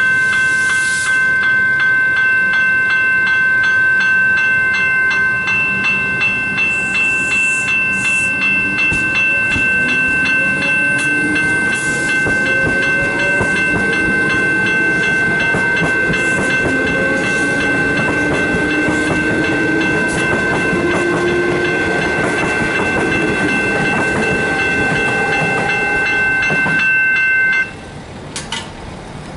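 Level crossing warning bells ringing continuously at a fast, even rate while an electric suburban train passes, its motors giving a rising whine. The bells cut off suddenly near the end, the point at which the boom gates rise.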